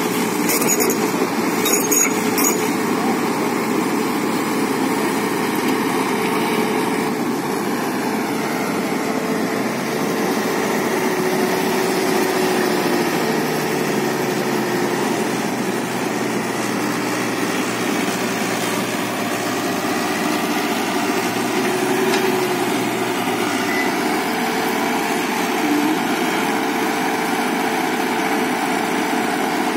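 JCB JS81 excavator's diesel engine running steadily, its pitch briefly rising and falling a couple of times, with a few sharp clicks near the start.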